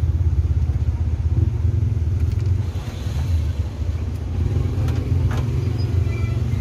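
A steady low rumble, with a short scraping rustle about halfway through and a couple of sharp clicks near the end as the metal cover of a window-type air conditioner is lifted and shifted by hand.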